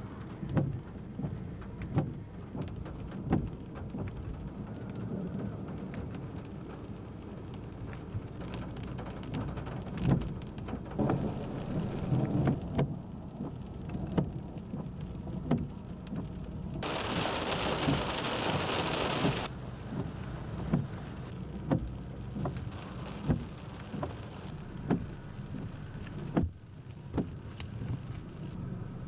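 Heavy rain pattering, with many sharp drop hits, over a low rumble of thunder. About seventeen seconds in, a louder rush of hiss lasts two to three seconds and cuts off abruptly.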